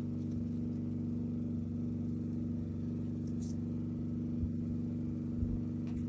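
An engine running steadily at an unchanging speed, a low even hum, with a couple of faint knocks near the end.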